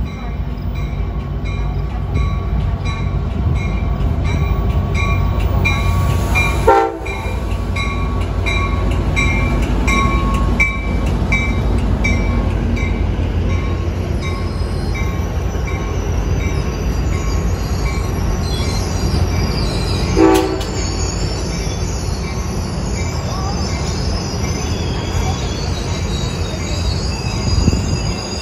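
Amtrak California passenger train of bilevel cars rolling past a station platform, a steady low rumble of wheels on rail. A bell rings about twice a second through the first half, two short horn toots come about 7 and 20 seconds in, and the wheels squeal in the second half.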